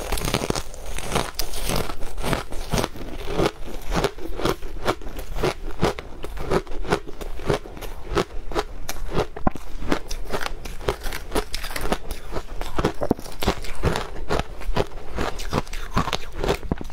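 Shaved ice coated in matcha powder crunched and chewed close to the microphone: a fast, dense run of crisp crunches several a second.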